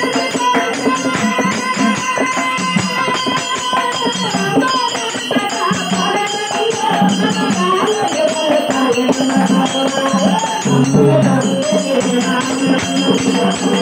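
Live Kannada dollu pada folk song: a melody sung over the dollu drum, with a fast, even jingling of small hand cymbals or rattles keeping the rhythm.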